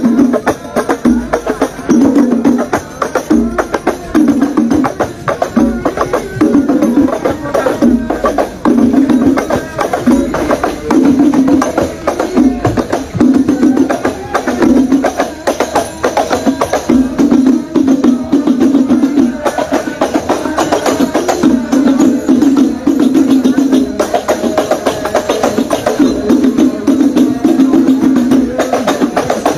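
Live percussion music: fast hand-drum beats with tambourine-like jingles and a group of voices singing along in repeated phrases.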